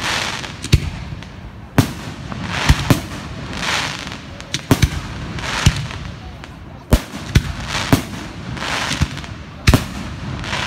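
Aerial fireworks display: shells bursting in sharp bangs at an uneven pace, about one or two a second, with hissing noise between the bangs.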